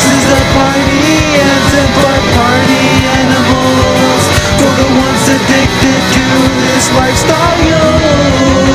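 Rock music: an instrumental passage led by guitars.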